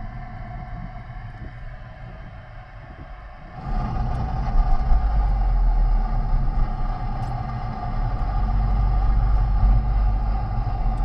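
Inside a moving car: steady low engine and tyre rumble on a wet road, which jumps abruptly louder about four seconds in.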